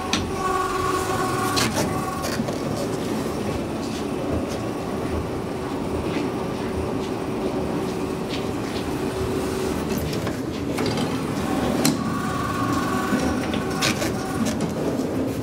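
Metro train running through the station: a steady rumble and hum, the hum stopping about nine and a half seconds in. A few sharp clicks and a short high ringing tone follow near the end.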